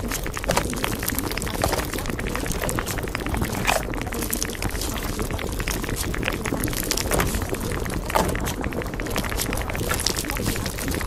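Water bubbling and gurgling, with a dense run of small pops and crackles and an occasional louder gurgle.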